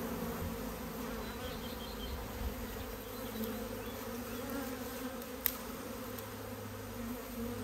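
Honeybee swarm buzzing steadily, the even drone of many bees, while the swarm is being hived into a skep. A single light click about five and a half seconds in.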